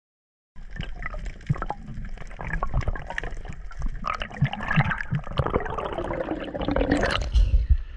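Underwater sound picked up by a diving camera: muffled water movement and bubbling with many scattered clicks and knocks, starting about half a second in and busiest near the end.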